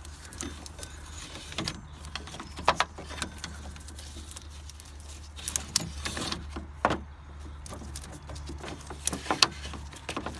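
Old rubber auxiliary drive belt being worked out of the engine bay by hand: scattered clicks, light knocks and rubbing as it catches on engine parts, over a steady low hum.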